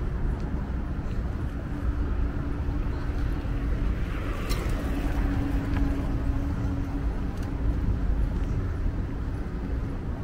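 Steady low outdoor rumble with a steady humming tone over it, and one brief sharp click about four and a half seconds in.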